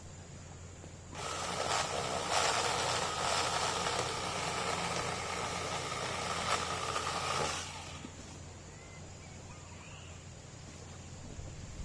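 Cordless 8-inch electric chainsaw running with a steady whine, starting about a second in and cutting off after about six and a half seconds.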